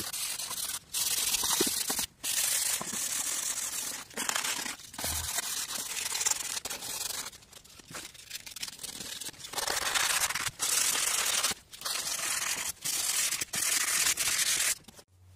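Fine P320 sandpaper rubbed by hand across the top deck of a four-cylinder engine block, scrubbing the surface clean. It goes in repeated scratchy strokes with brief pauses and cuts off shortly before the end.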